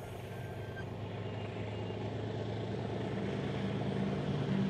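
Excavator's diesel engine running with a steady low hum, growing gradually louder.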